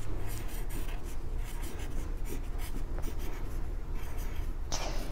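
Pencil writing on paper: a run of short, irregular scratchy strokes as a word is written out by hand, with a brief louder hiss near the end.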